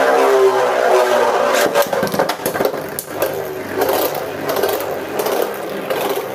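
Two Beyblade spinning tops, Tempest Dragon and a metal Meteo L-Drago, whirring in a plastic stadium just after launch, their pitch sinking slowly, with short knocks as they collide.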